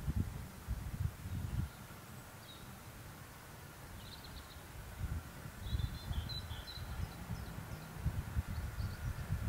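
Outdoor ambience: irregular gusts of low rumble, like wind on the microphone, with several short bird chirps. A steam locomotive approaching from a distance is heard only faintly under it.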